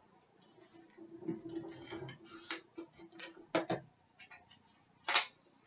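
Paper being handled and pressed on a craft work surface: scattered light taps and rustles, with a few short scraping strokes, the sharpest near the end.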